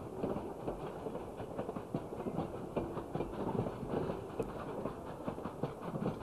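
Steam locomotive hauling a passenger train past, a quick uneven clatter of wheels and running gear over the rails.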